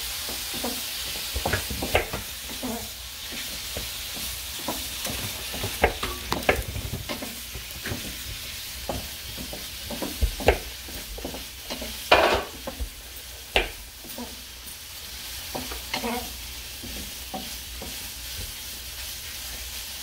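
Diced meat sizzling steadily in a frying pan. Over it come irregular knocks and clicks from a knife chopping sweet potato on a plastic cutting board and from a wooden spatula stirring in the pan.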